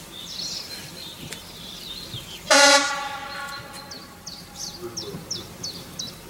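Class 810 railbus sounding its horn once, a short single-tone blast about two and a half seconds in that trails off afterwards. Birds chirp repeatedly throughout.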